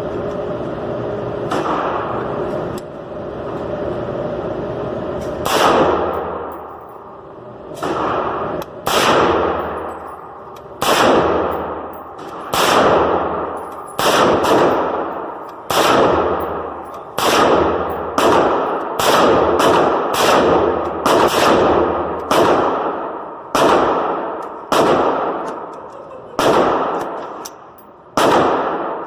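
Semi-automatic rifle fired in slow, steady single shots, about seventeen of them, one every second or so, each with a long echo trailing off. The shots begin after a few seconds of steady noise.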